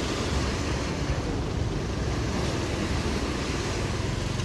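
Sea waves washing onto the beach in a steady rush of surf, with wind rumbling on the microphone.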